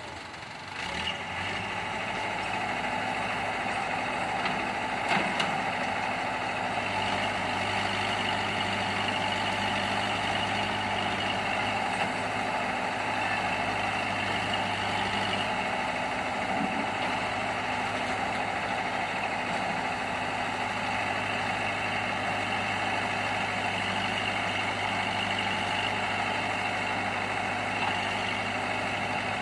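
Heavy diesel engine running at a steady idle, coming in about a second in and then holding an even, unchanging note.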